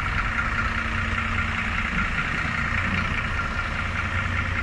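Bus engine running steadily nearby with a low hum, as if idling or creeping along slowly.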